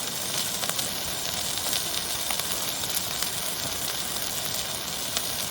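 Beef burgers sizzling over a campfire: a steady hiss flecked with small pops and crackles.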